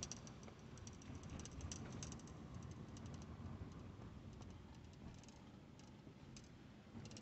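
Faint low rumble inside a slowly moving car, with light, irregular clicks scattered through it, most of them in the first second or so.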